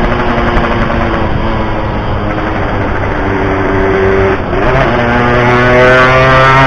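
Yamaha RX-King 135cc two-stroke motorcycle engine running under way, with a short break about four and a half seconds in, then rising steadily in pitch as it accelerates.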